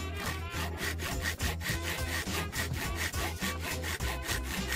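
Hand saw cutting through a small wooden block clamped in a metal vise, in quick, even back-and-forth strokes, several a second.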